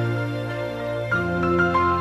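Background music: soft held chords that change about a second in, with single higher notes picked out over them.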